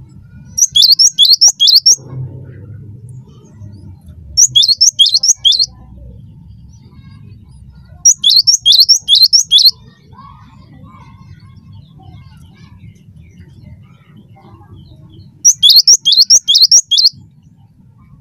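Cinereous tit singing: four loud bursts of a quick phrase, each of four or five sharp notes that drop in pitch, with pauses of a few seconds between bursts. A faint low rumble runs underneath.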